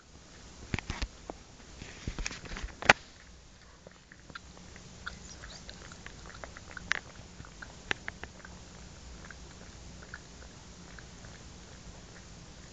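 A small dog licking and chewing with its mouth, wet clicks and smacks at irregular intervals, with a few louder knocks in the first three seconds.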